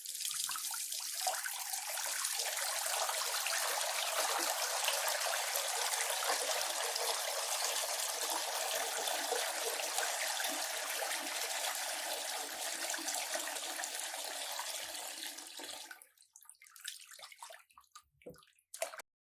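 Hands being washed under a tap running into a basin: a steady stream of splashing water that stops about three-quarters of the way through, followed by scattered drips and small splashes and one short louder splash near the end.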